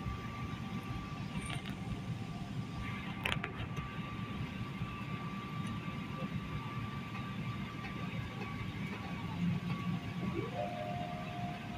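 Airliner cabin noise: a steady low rumble with a faint steady whine above it. A single click sounds about three seconds in, and near the end a tone slides up and then holds.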